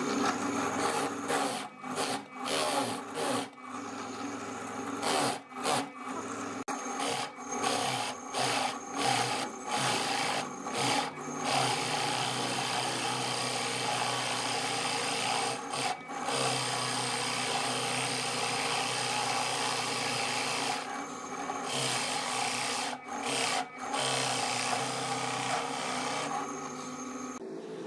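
Drill press running with a large Forstner bit boring a wide, flat-bottomed hole into a glued-up panel of striped wood, the wood being shaved away into chips. The cutting sound drops out briefly many times in the first half, then holds mostly steady.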